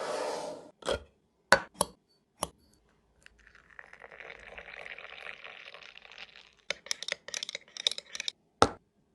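Glassware and kitchen utensils being handled: sharp clinks and taps, a few seconds of steady hissing noise in the middle, then a quick run of clinks and one louder knock near the end.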